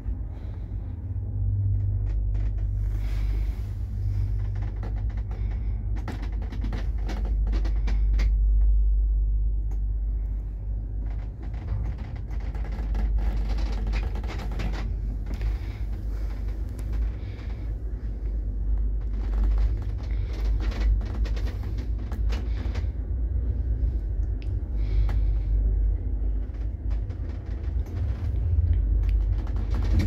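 A 1969-built passenger lift travelling in its shaft: a steady low rumble with frequent small clicks and rattles from the car.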